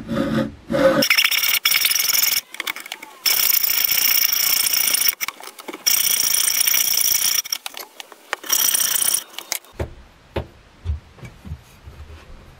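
Hacksaw cutting across a wooden hammer-handle blank to form the shoulder of its tenon: a harsh, high rasp in runs of strokes with short breaks, stopping about nine and a half seconds in. A few light knocks follow near the end.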